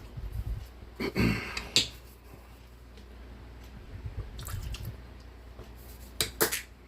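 Handling noises on a work table: a short burst of rustling noise about a second in, a few light clicks around the middle, and two sharp clicks near the end.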